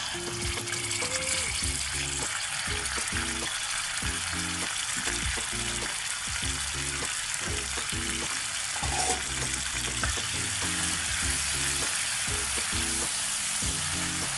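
Blended chili paste frying in hot oil in a stainless steel pan, a steady sizzle, with a wooden spatula stirring near the end. Background music plays underneath.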